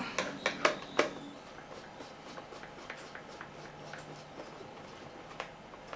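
Screwdriver tightening screws into a small plastic radio case: a few sharp clicks in the first second, then scattered faint ticks and taps.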